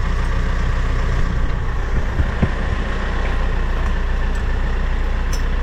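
Engine idling steadily, a low even hum, with a couple of faint knocks about two seconds in.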